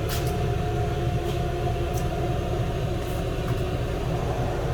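Steady low machine drone with a few steady tones over it, like a motor running continuously.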